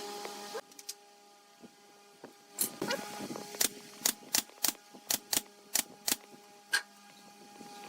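A steady workshop machine noise cuts off shortly after the start. After a pause comes a run of about a dozen sharp knocks, two to three a second, as a hammer taps on wood. A faint steady hum runs underneath.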